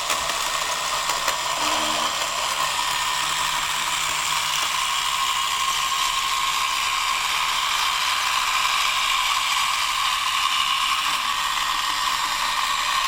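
Robot vacuum cleaner running: a steady mechanical whir of its motor and brushes with faint clicking.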